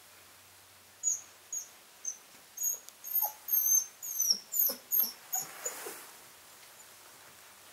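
Spanish Mastiff puppy whining in a run of about a dozen short, high-pitched squeals, some falling in pitch, starting about a second in and stopping near six seconds.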